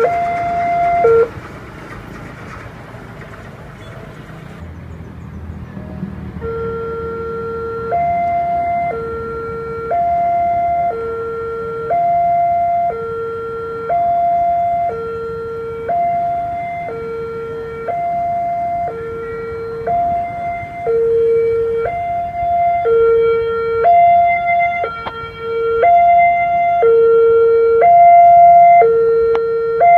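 Railway level-crossing warning alarm: an electronic two-tone signal stepping between a lower and a higher note, about one note a second, sounding while the signals flash and the barriers are down. It breaks off about a second in and starts again some five seconds later. Near the end a second alarm joins out of step and it grows louder.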